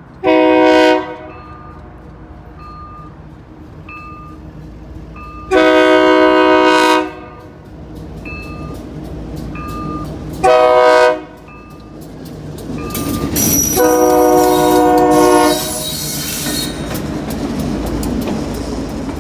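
GE B23-7 diesel locomotive sounding its Nathan K3LA three-chime air horn for a grade crossing: four blasts, the second and fourth long, while the crossing signal bell rings in short repeated strikes. From about twelve seconds in, the locomotive's engine and wheels rumble past with clicks over the rail joints.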